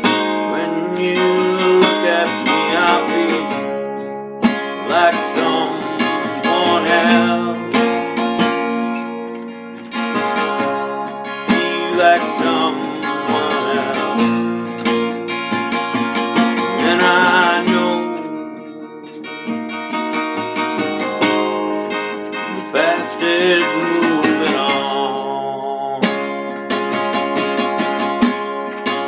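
Epiphone EL-00 parlor acoustic guitar strummed with a flat pick in a steady folk-rock rhythm, ringing chords with no break.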